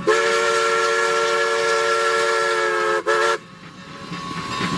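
Train horn sounding a chord of several notes in one long blast of about three seconds, then a short toot, followed by a softer rising hiss.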